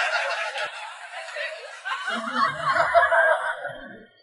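Laughter, fading out just before the end.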